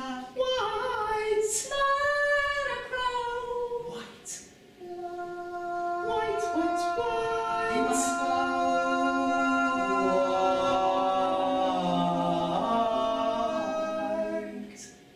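Women's voices singing wordlessly without accompaniment: sliding, wavering pitches at first, then several voices holding long notes together in a chord for about nine seconds before fading out near the end.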